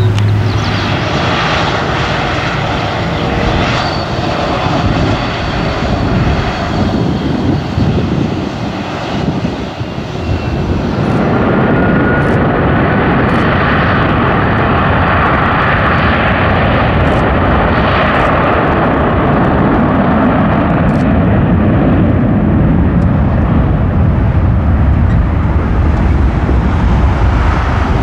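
Airliner jet engines running steadily as the aircraft taxi, a dense continuous rumble. About a third of the way through, the sound changes abruptly and loses its top end.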